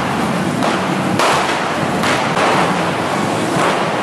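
Hand-held correfoc firework fountains spraying sparks with a loud, steady hiss, broken by a couple of sharp cracks about one and two seconds in.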